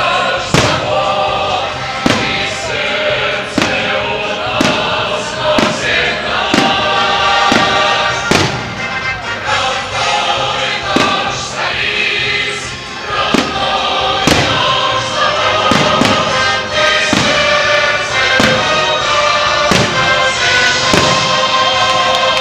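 Fireworks going off in a rapid series of sharp bangs, roughly one or two a second, over loud choral music.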